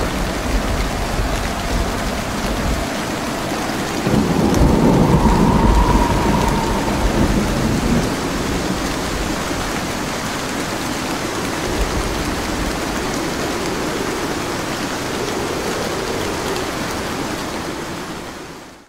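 Rain-and-thunder sound effect: steady heavy rain, with a low rumble of thunder swelling about four seconds in, fading out at the very end.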